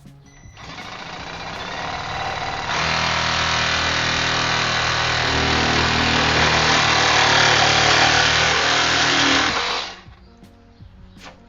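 Milwaukee M12 Hackzall 2420-20, the brushed 12-volt one-handed reciprocating saw, cutting through plastic pipe. It starts up softly, speeds up sharply about two and a half seconds in, runs steadily while it cuts, and stops just before the end.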